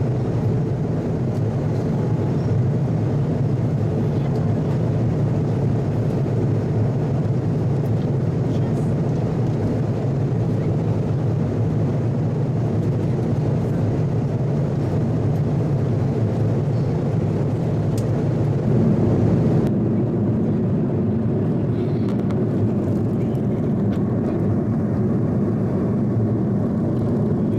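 Steady cabin drone inside an Airbus A330-300 airliner in flight: engine and airflow noise, a low, even rumble. About two-thirds of the way in, the tone shifts abruptly and the higher hiss falls away.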